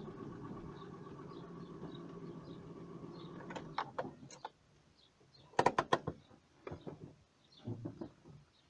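A small engine idling steadily, cut off about three and a half seconds in, then several sharp clicks and clunks, the loudest around the middle. Faint high bird chirps repeat throughout.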